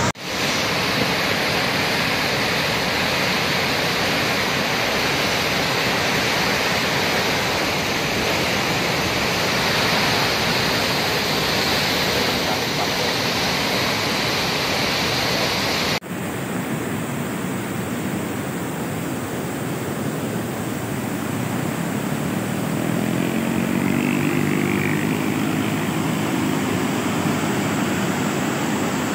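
Steady rushing of a swollen, flooding river, muddy floodwater churning at high flow. The sound breaks off abruptly about halfway through, where the footage is cut, and the rushing carries on. A faint pitched hum joins for a few seconds near the end.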